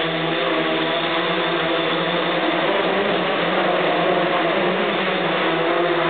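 Hexacopter's six brushless electric motors and propellers running in flight, a steady whirring buzz of several pitches held close together.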